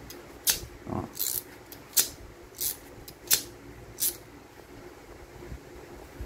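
Marvel MH-61 hand crimping tool clicking as its handles are worked: six sharp metal clicks about two-thirds of a second apart, stopping after about four seconds.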